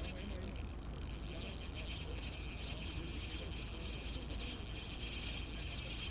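Spinning reel being cranked on a slow lure retrieve: a steady high whir that dips briefly about a second in, over a low rumble of wind on the microphone.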